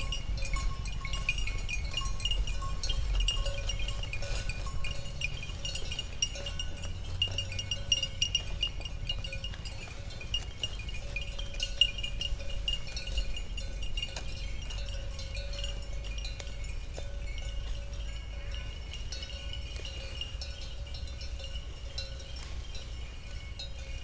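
Small bells tinkling and ringing continually, with many light clinks, over a steady low rumble.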